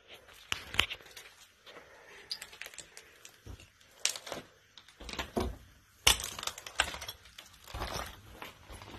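Footsteps crunching over broken wooden boards and debris, with irregular snaps, cracks and knocks as the wood shifts and breaks underfoot, several of them louder than the rest.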